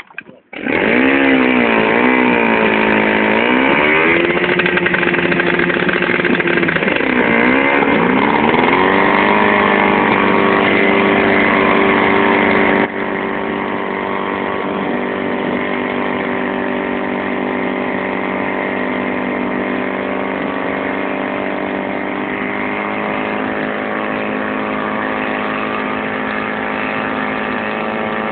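Portable fire pump's petrol engine starting suddenly and revving up and down twice, then running steadily at high revs while it pumps water through the hoses; its loudness drops a little, abruptly, about thirteen seconds in.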